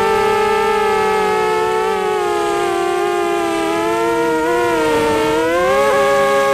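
Jumper 218 Pro FPV quadcopter's brushless motors and propellers whining as heard from its onboard camera, several close pitches running together. The pitch sags slowly, dips about five seconds in, then climbs again and holds as throttle changes.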